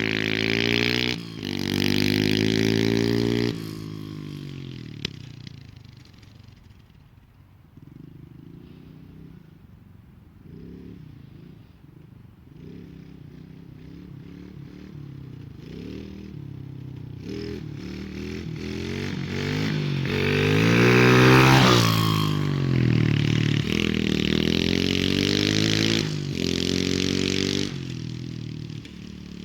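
Small single-cylinder motorcycle engine, a 110cc semi-automatic four-stroke monkey bike, revving hard with its pitch climbing and dropping through the gears as it rides away. It fades to a faint drone, then comes back and passes close, loudest about two-thirds of the way through, before dropping off near the end.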